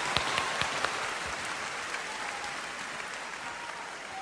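Audience applauding. Separate claps are heard at first, then they blend into a steady wash that slowly fades.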